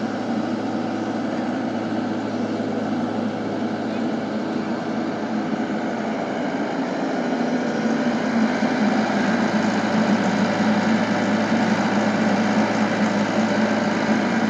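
Steady electric motor and pump hum of a radio-controlled toy excavator working, getting louder about eight seconds in.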